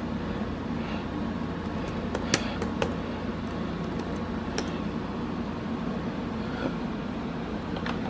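A handful of short clicks from the keys of a Lenovo laptop keyboard being pressed, mostly about two to three seconds in with one more a little later, over a steady background hum.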